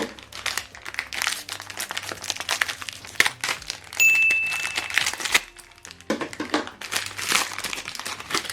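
Plastic packaging crinkling and crackling as an HP 305 ink cartridge is handled and unwrapped, with a steady high beep lasting about a second some four seconds in, followed by a brief pause before the crinkling resumes.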